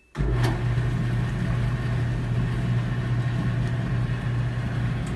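Samsung clothes dryer starting up: the drum motor kicks in abruptly with a click and settles into a steady low hum as the drum turns a full load. There is no squeaking from the new belt, belt tensioner and drum bearings, which sounds about right for a freshly overhauled drum drive.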